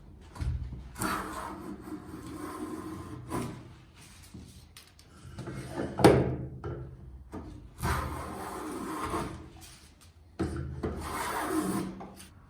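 Wooden parts sliding and scraping against each other in several long strokes, with one sharp wooden knock about six seconds in.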